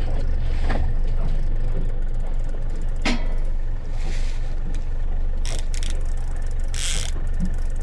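Boat motor running steadily while trolling, a constant low hum, with a couple of sharp knocks and two short hissing bursts in the second half.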